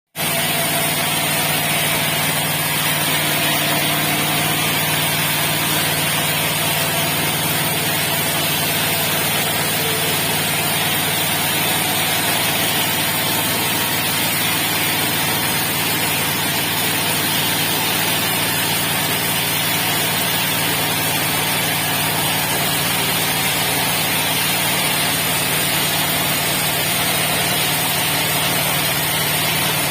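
Nine-horsepower engine of a horizontal bandsaw sawmill running steadily at an even speed on a test run.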